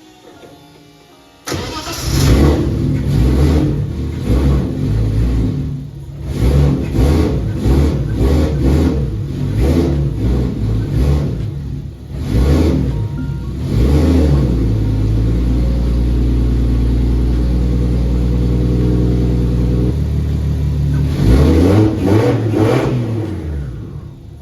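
A car engine fires up about a second and a half in after sitting for months, and is revved in repeated blips. It then settles to a steady idle for several seconds and is blipped twice more near the end.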